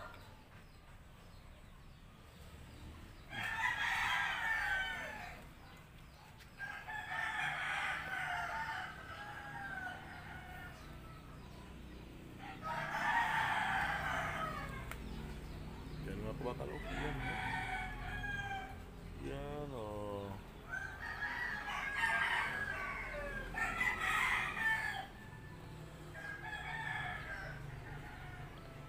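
Roosters crowing again and again, about seven crows in all, each a second or two long with a few seconds between them.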